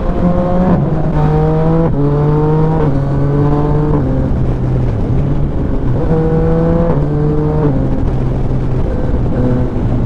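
Yamaha Tracer 900 GT's 847 cc three-cylinder engine pulling hard through the gears. The pitch climbs and then drops at each upshift, three times in quick succession in the first four seconds and again about six seconds in, before it settles to a steadier drone. A constant rush of wind and road noise runs underneath.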